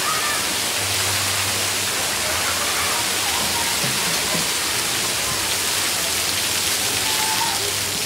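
Steady hiss of water spraying and pouring down from a splash-pad water-play structure onto the wet deck, much like heavy rain, with faint voices in the background.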